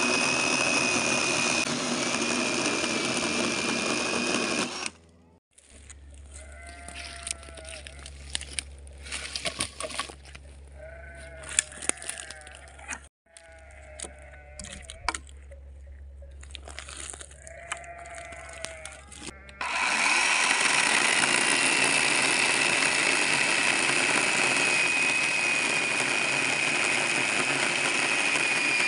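Small battery electric chainsaw running with a steady high whine as it cuts through a dead log, stopping about five seconds in and starting again to cut at about twenty seconds. In the gap, animals bleat four times and a few sharp clicks and snaps are heard.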